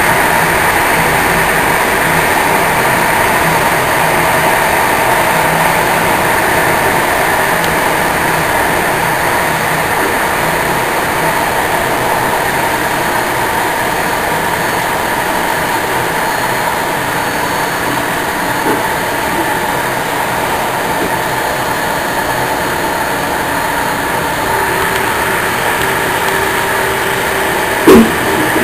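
Steady rolling noise of an InterCity train heard from inside its last carriage, the wheels running on the rails at speed, with a few faint steady tones. Near the end a single short, loud thump stands out.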